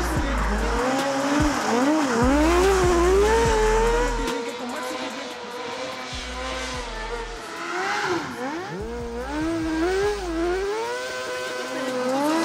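Drift kart's engine revving up and down over and over as it slides through the turns, the pitch climbing and dropping every second or so.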